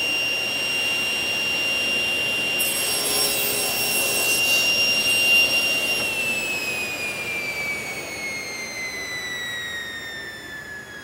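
Table saw running at full speed with a steady high whine. From about two and a half to six seconds in it crosscuts a board, adding a harsh rushing noise. The saw is then switched off and the blade spins down, its whine falling steadily in pitch.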